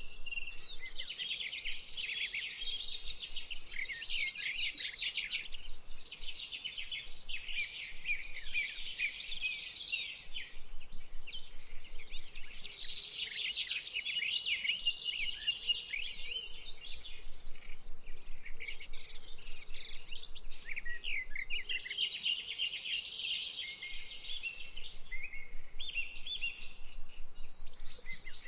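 Many small birds chirping and twittering together in a dense, continuous chorus that swells and dips with brief lulls.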